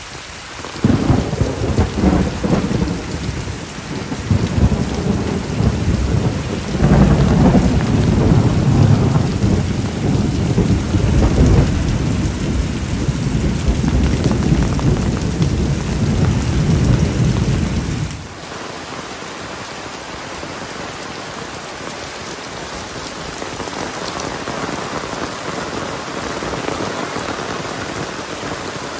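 Heavy rain falling. For the first two-thirds a loud low rumble rides over it, swelling and ebbing, then cuts off suddenly about 18 seconds in, leaving a steady rain hiss.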